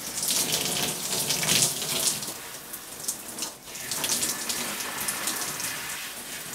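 Handheld shower head spraying water onto wet hair and scalp, rinsing out shampoo. The spray hiss swells and fades as it moves over the head, with a brief drop about three and a half seconds in.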